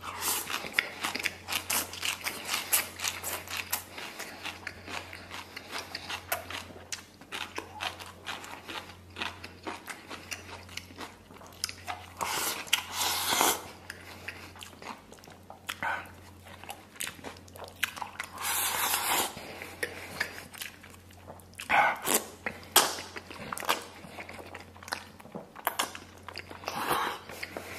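Close-up eating sounds: a person chewing and crunching mouthfuls of rice, shredded cabbage and stewed beef tendon, with wet mouth clicks and several louder, longer bites.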